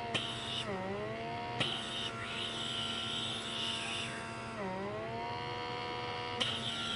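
Handheld blackhead-remover vacuum pore cleaner's small suction motor running with a steady whine; its pitch sags and recovers about a second in and again near five seconds. A hiss of air comes and goes with small clicks.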